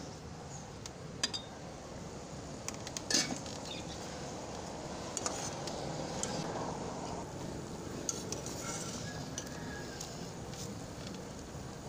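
Phalsa berries bubbling in liquid in an aluminium saucepan while a metal ladle stirs them, clinking against the pot several times; the loudest clink comes about three seconds in.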